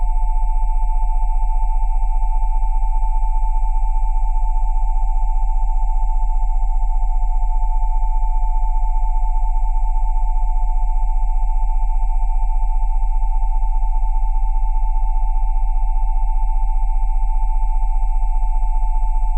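Steady synthesized sine tones sounding together, at 727, 787 and 880 Hz over a deep 20 Hz tone. They make one unchanging electronic drone with a fast, even pulsing where the close pitches beat against each other.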